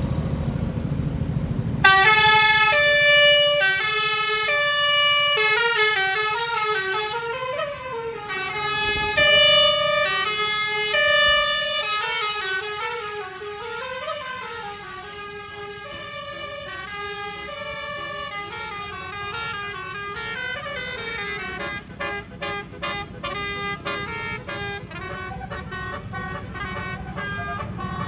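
Tour bus's roof-mounted basuri telolet horn playing a melody of stepped horn notes, starting about two seconds in over the rumble of the bus. The tune is loudest over its first ten seconds, then runs on more quietly in quicker short notes.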